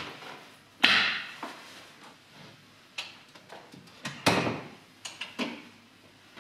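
Irregular knocks and clicks of a room door and its handle being worked, the loudest about a second in and another strong one a little after four seconds, with smaller clicks between.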